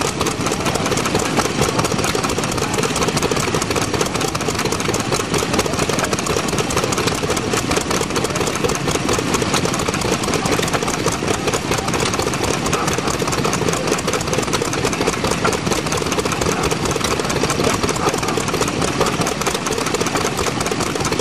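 Vintage hopper-cooled single-cylinder stationary engine running steadily at an even beat.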